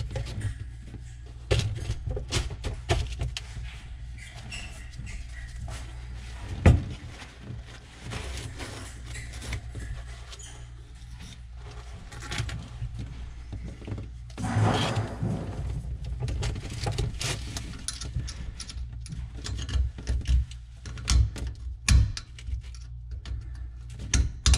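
Hand tools being handled and worked at a threaded brass pipe fitting: scattered clicks and knocks, one sharp knock about seven seconds in, and a scraping sound of about a second midway, with more knocks near the end.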